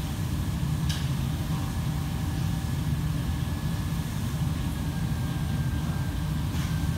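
Steady low rumble of commercial kitchen ventilation fans and machinery, with a faint steady high whine and a light click about a second in.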